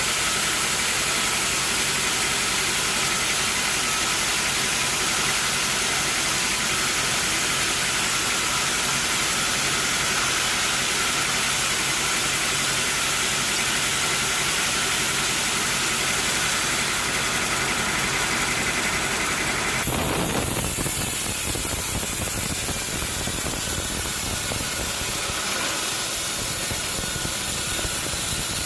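Sawmill machinery running steadily with a loud hiss and engine drone. About twenty seconds in, the sound changes abruptly.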